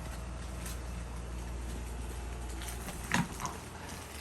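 Tat-made 52-inch Hometrends Deluxe ceiling fan running on low speed, just switched on: a steady low hum, with a short bump about three seconds in.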